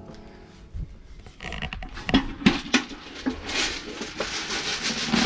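Jersey calves moving about at a cattle-panel hay feeder in a barn: a few sharp knocks about two seconds in, then rustling and shuffling that grows louder toward the end.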